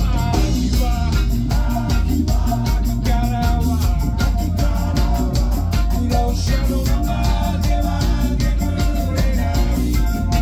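A live band playing a song with a steady beat: drum kit, electric guitar and keyboard, with singing over them, heard from the crowd in the club.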